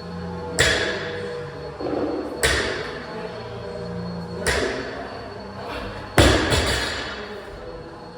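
A series of sharp knocks, about two seconds apart with the last two close together, each followed by a brief ringing decay, over a faint steady hum.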